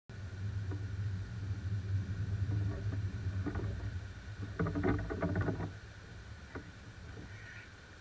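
Wind buffeting a trail camera's microphone as a low rumble that eases near the end, with a short burst of grunting from a herd of feeding wild boars about halfway through.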